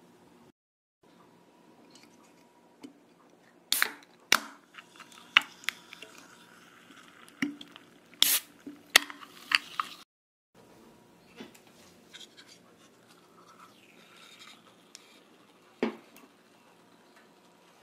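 Aluminium soda cans being handled and opened: a string of sharp clicks and cracks, the loudest about 8 seconds in as a can's tab snaps open, among quieter rustling of paper food wrappers.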